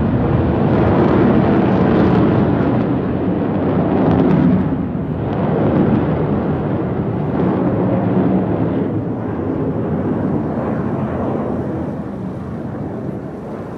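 Jet engines of a formation of Black Eagles T-50B jets flying overhead: a loud, deep, rumbling roar that swells and wavers, then fades over the last few seconds.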